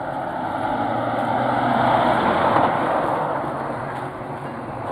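A large truck driving past, its engine and tyre noise swelling to a peak about two seconds in and then fading as it goes by.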